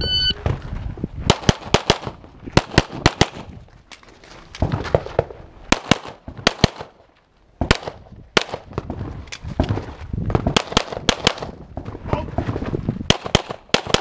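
A shot-timer start beep, then a competition pistol fired rapidly, mostly in quick pairs of shots, through a practical-shooting stage, with a short lull about halfway through.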